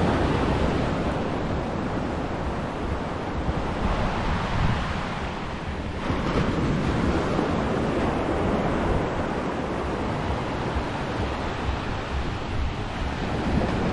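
Surf washing onto a sandy beach, a steady rush of waves, with wind buffeting the microphone and adding a low rumble.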